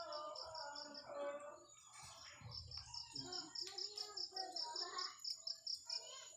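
Rapid, evenly repeated high chirping, about seven chirps a second, that breaks off briefly about a second in and then runs on, over a steady high insect whine.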